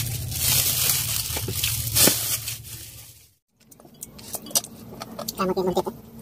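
Eating sounds at a table: light clinks of plates and small clicks as food is handled, over a steady low hum. The sound cuts out completely for a moment a little past halfway, then comes back quieter with scattered clicks.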